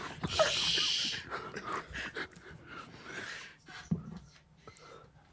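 Stifled, breathy laughter with wheezing, loudest in the first second and then dying away.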